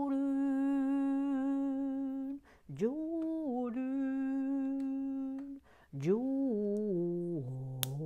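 A man's voice singing a slow, wordless tune in three long phrases, each rising to a held note, the last stepping down near the end.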